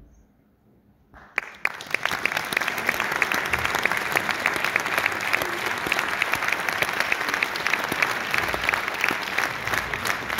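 About a second of near silence, then audience applause starts suddenly and goes on as dense, steady clapping by many hands.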